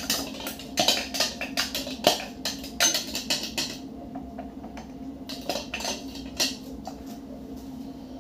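Metal tongs scraping and knocking against a hand blender's chopper bowl as blended garlic-lemongrass paste is scraped and tapped out onto raw chicken: a string of irregular clicks and knocks, sparser for a second or so midway.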